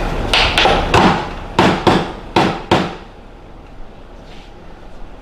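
Hammer blows during leaf spring removal, about seven sharp strikes in quick pairs over two and a half seconds.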